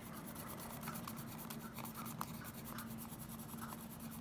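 Colored pencil scratching over frosted shrink plastic in short, light shading strokes, with a faint steady hum underneath.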